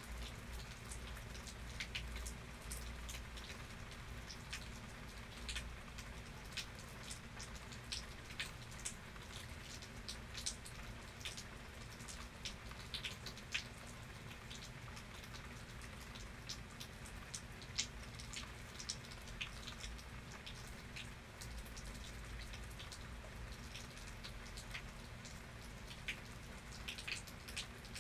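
Steady rain falling, with many scattered drops ticking sharply on a nearby surface over a low, even rumble.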